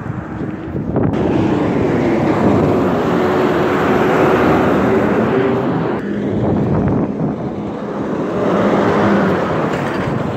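Road traffic passing close by: engines and tyre noise, loud and continuous, with a dump truck going past near the end.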